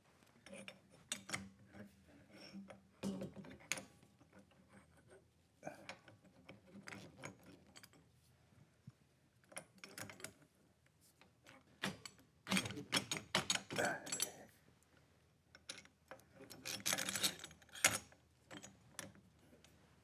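Metal parts clinking, knocking and scraping as a freshly bent part is test-fitted onto a motorcycle frame and engine. Scattered light clicks, with two busier bursts of rattling knocks past the middle.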